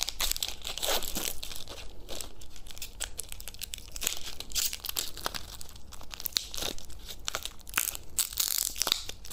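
Plastic wrapper of a heart-shaped lollipop being crinkled and torn open by hand: a continuous run of irregular crackles and rustles.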